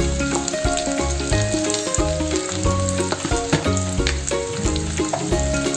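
Onions, chillies and curry leaves sizzling as they fry in hot oil in an aluminium pot. Background music with a stepping bass line plays throughout.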